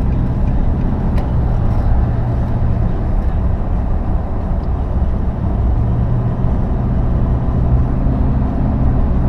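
Steady low rumble of a moving road vehicle heard from inside: engine and road noise, with a faint low hum.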